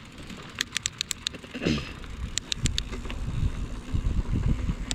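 Mountain bike riding over a dirt trail: irregular sharp clicks and rattles from the bike, a short falling tone just under two seconds in, and a low rumble of tyres and wind on the microphone that builds through the second half.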